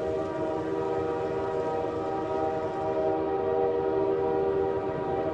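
HO scale model diesel locomotive's sound system sounding a long, steady horn: a chord of several held tones over the low rumble of the running train.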